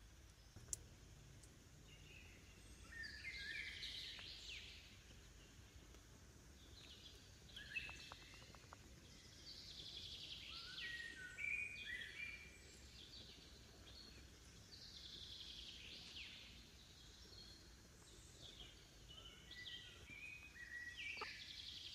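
Faint birdsong: several birds chirping in short, repeated calls, many falling in pitch, over a low background rumble. A single sharp tick about a second in.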